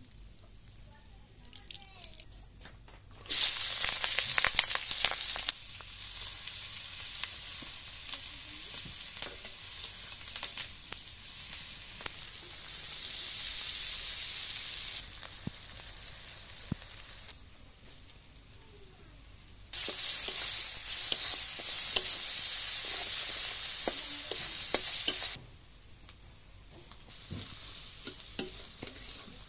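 Sliced onions and green chillies frying in hot oil in an aluminium kadai: a loud sizzle starts suddenly a few seconds in and settles into a steadier frying hiss. It swells loud again for several seconds in the second half. Near the end a metal spatula scrapes and stirs through the pan.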